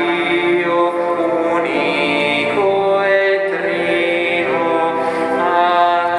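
Slow liturgical chant, sung with long held notes that change pitch every second or two.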